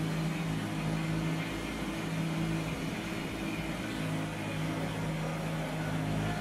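Kubota BX compact tractor's three-cylinder diesel engine running steadily as the tractor drives along a gravel road.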